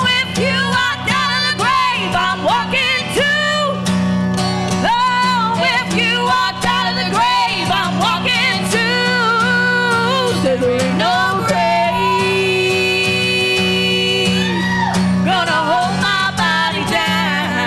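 Women singing a gospel song over a strummed acoustic guitar, with long wavering held notes and runs from the lead singer.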